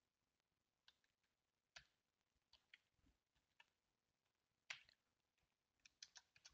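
Faint computer keyboard keystrokes: a dozen or so scattered, unhurried key clicks, the loudest about three-quarters of the way through, with a quick run of them near the end.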